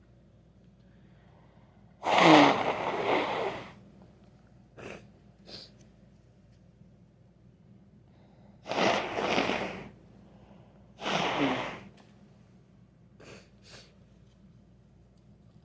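A person with a cold sneezing three times: a long sneeze about two seconds in, then two more in quick succession past the middle. A few short, faint sounds fall between them.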